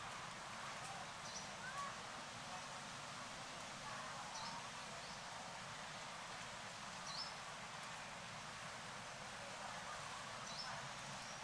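Outdoor ambience: a steady faint hiss with short, high chirps every second or few seconds, and a few fainter, lower calls.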